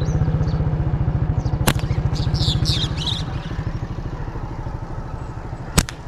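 An engine idling with a steady, fast low beat that eases off over the last few seconds. Two sharp snaps stand out, one a little under two seconds in and one near the end, with brief high bird chirps between them.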